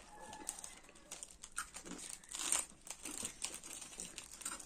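Faint, irregular crinkling and crackling from small crunchy snacks being handled and chewed, with a slightly louder cluster about halfway through.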